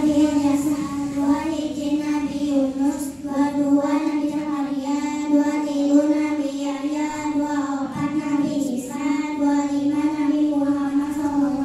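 A group of young girls singing together through microphones, a chanted melody that stays close to one pitch throughout.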